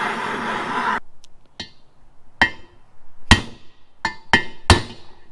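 A propane torch hisses steadily for about a second and then cuts off. A hammer then strikes a steel socket set on a bearing in a heated aluminium two-stroke engine case, driving the bearing out: six or seven sharp metallic clanks with a short ring, coming quicker near the end.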